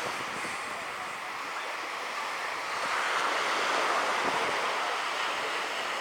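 Sea surf breaking and washing up the shore, a steady hiss that swells about halfway through, with wind buffeting the microphone.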